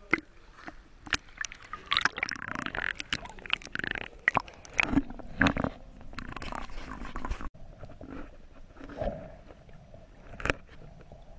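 Water splashing and sloshing against a camera held at the surface, with many sharp clicks and knocks. A little past halfway it cuts suddenly to quieter, muffled underwater sound with a few scattered clicks.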